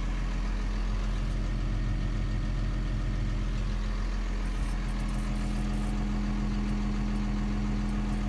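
New Holland T7030 tractor's six-cylinder diesel engine idling steadily.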